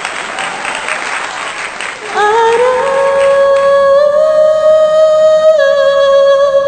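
Applause for about the first two seconds, then a woman sings one long held note with a slight waver, louder than the applause, through a condenser microphone.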